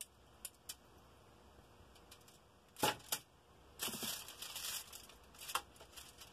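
Metal kitchen tongs clicking and aluminium foil crinkling as raw chicken drumsticks are handled on a foil-lined tray. A few light clicks, a louder clatter about three seconds in, then a stretch of crinkling.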